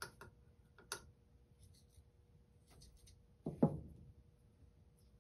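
Quiet handling of a metal can of PVC cement and a PVC pipe fitting: a few light clicks, then one louder knock about three and a half seconds in.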